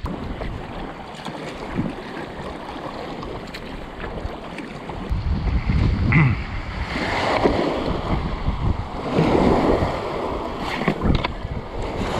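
Water splashing around a folding kayak as it is paddled, with wind noise on the microphone; the splashing swells louder twice in the second half.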